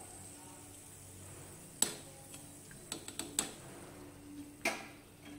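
Faint clinks and taps of metal kitchen utensils against a frying pan: a sharp click about two seconds in, a quick cluster of lighter taps around three seconds, and one more near the end.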